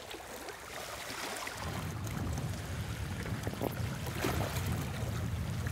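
Sea water washing and surging around a rocky shore, a steady rushing noise, with a low rumble setting in about a second and a half in.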